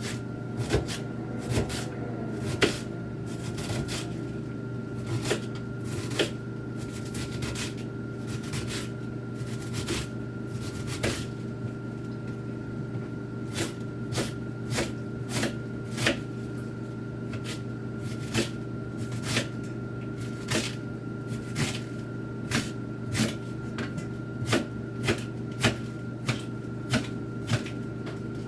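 Knife chopping cabbage on a cutting board: sharp, irregular knocks about one or two a second, over a steady hum in the kitchen.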